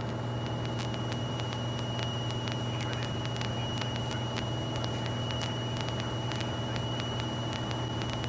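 Cessna 172E's Continental O-300-D six-cylinder engine and propeller droning steadily in cruise, with a thin steady high whine over the drone.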